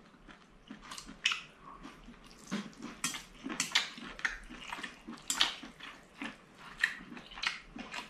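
A man eating seafood noodles up close: chewing, with chopsticks clicking against the ceramic bowl, in short irregular sounds.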